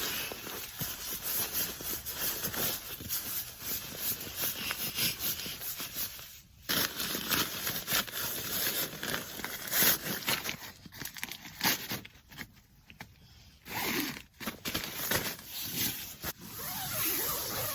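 Rustling, scraping and zip-like strokes of outdoor gear being handled and packed, in an irregular run with two short lulls partway through.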